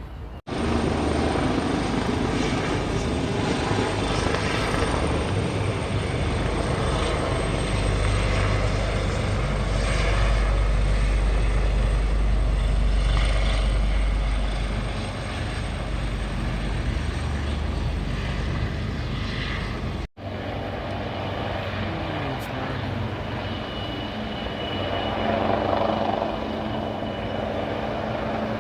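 Propeller aircraft engines running loud, with a steady high whine and a deep rumble that swells up in the middle and then eases; after a sudden cut, a quieter engine drone.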